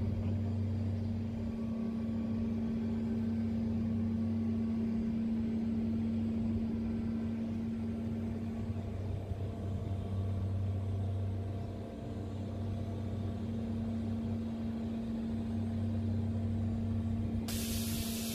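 Steady low hum of a running York variable-speed-drive screw chiller, made of two humming tones that now and then fade and come back. A loud, even hiss cuts in suddenly near the end.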